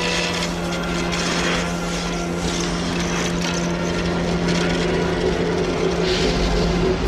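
Animated-film fire sound effect: a steady rushing roar of flames over a held low drone, swelling into a louder burst about six seconds in as a fireball erupts.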